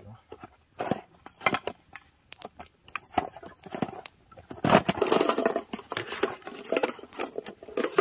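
Camping gear being handled and unpacked: scattered knocks and clicks, with a stretch of rustling and crinkling, like bags being rummaged, about five seconds in.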